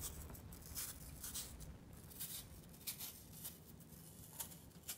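Faint, irregular scraping strokes of a kitchen knife peeling the skin off a quarter of Granny Smith apple.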